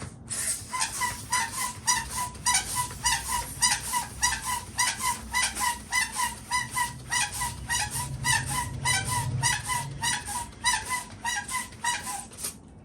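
Balloon being pumped up with a hand pump, worked fast at about three to four strokes a second. Each stroke is a rush of air with a short squeak.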